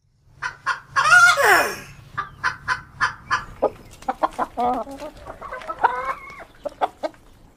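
Chickens clucking in short repeated calls, with a rooster crowing once about a second in and another drawn-out call near the end.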